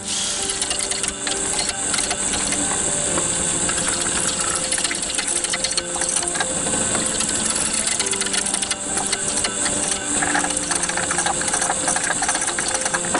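A King KWL-813VS variable-speed wood lathe spins a wooden blank while a turning tool cuts it: a steady, dense rattling cutting noise.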